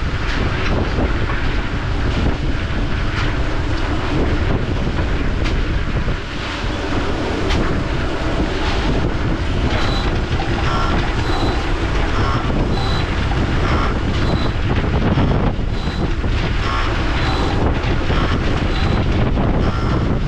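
A heavy vehicle engine runs steadily, with wind on the microphone. From about halfway through, a high electronic beep repeats a little more than once a second, like a reversing alarm.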